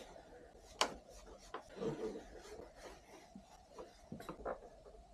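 Light scattered clicks and rubbing of motorcycle parts being handled and fitted, with one sharper click about a second in.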